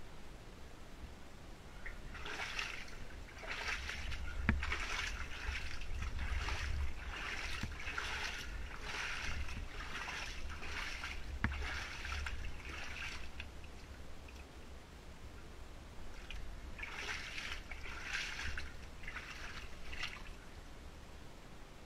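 Wellington boots wading through shallow water in a flooded mine passage: a run of sloshing steps, roughly one to two a second, a pause of a few seconds, then a few more steps, over a low rumble of camera handling.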